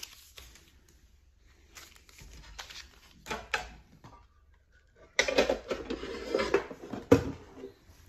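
Hands handling Pokémon Go booster packs and their cardboard box: a few scattered light clicks and taps, then from about five seconds in a denser stretch of packaging handling noise lasting about two and a half seconds.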